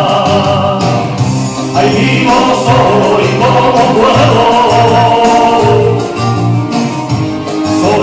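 A man singing a rumba into a hand-held microphone over recorded backing music played through a PA speaker.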